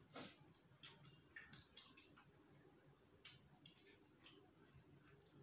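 Near silence with faint, irregular little clicks and smacks of two people chewing aloo paratha and tearing it with their fingers.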